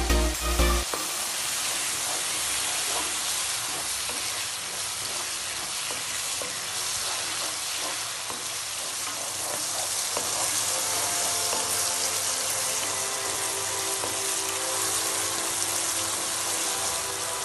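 Onion, tomato and green chilli masala sizzling steadily in oil in a wok as it is fried and stirred with a wooden spoon. There is a brief low rumble in the first second.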